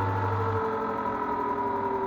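LG F1296CDP3 washer-dryer running: a steady motor whine, one tone of which slowly falls in pitch. A low hum under it stops about half a second in.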